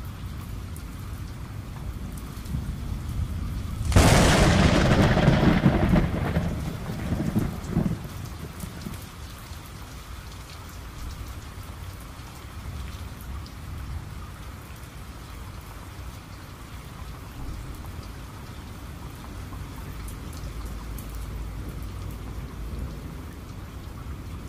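Steady rain falling, with a sharp thunderclap about four seconds in that rumbles away over the next few seconds.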